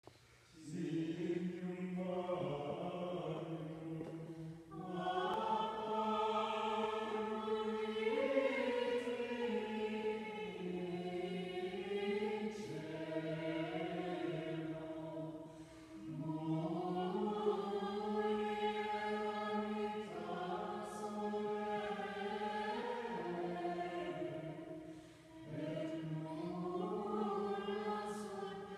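A choir singing a slow Latin chant, held notes stepping from pitch to pitch in long phrases broken by three short pauses.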